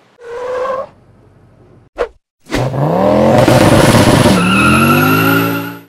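Car engine sound effect in an intro sting: the engine revs up hard, drops back briefly about four seconds in as if shifting gear, then climbs again under a high whine. It is preceded by a short tone and a click.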